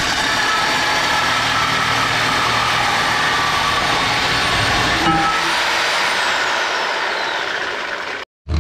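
Cordless power tool cutting through a rusty steel exhaust pipe, running steadily with a high whine. About six seconds in, its pitch slides down as the motor winds down and the pipe comes free.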